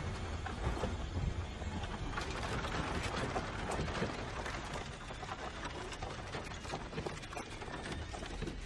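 Horse-drawn carriage rolling over rough ground, its wheels and body rattling steadily with a low rumble and many small clicks.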